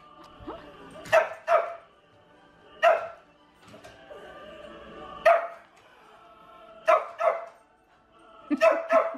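Shih tzu barking in short, sharp barks, some single and some in quick pairs, about eight or nine in all, with a quick run of barks near the end. Christmas music plays softly from the television between the barks.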